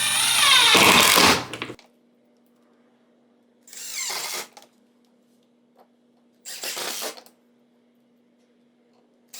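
Power drill driving screws into a cabinet door in short bursts. The opening run's pitch drops as it stops about a second and a half in, then come two brief bursts a few seconds apart.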